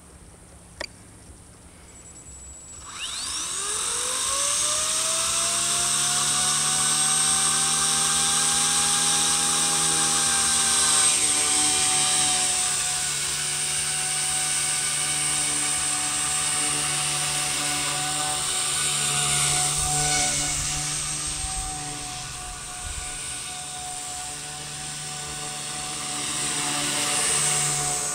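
Blade 130X micro electric RC helicopter, with a click about a second in. It then spools up from about three seconds in, its motor and rotor whine rising quickly in pitch before settling. It then flies with a steady high whine that grows louder and fainter as it moves around.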